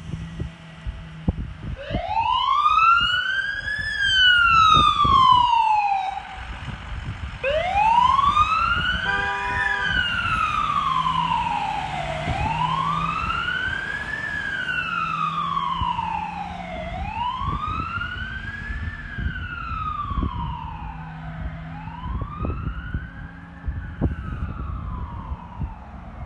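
Fire truck siren wailing in slow rising and falling cycles, about one every four to five seconds, as the brush truck pulls out on an emergency call. Wind buffets the microphone.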